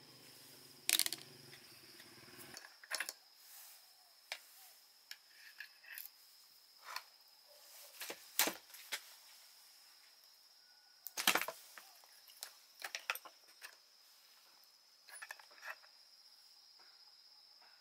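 Scattered sharp metallic clinks and knocks, like tools or small metal parts being handled and set down, over a steady high insect drone. A low hum cuts off about two and a half seconds in.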